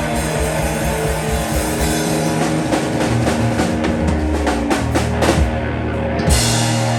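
Rock band playing: electric guitar and bass over drums, with a run of drum hits in the middle and a cymbal crash near the end.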